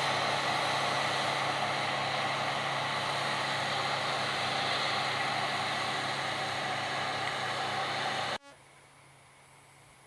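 Heavy farm machinery running steadily with a deep engine hum under a dense mechanical din. It cuts off abruptly about eight seconds in, giving way to a much quieter background with a few faint ticks.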